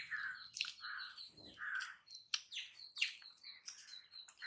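Faint birds chirping: short, repeated call notes a few times a second, with a thin high tone behind them and a few soft clicks.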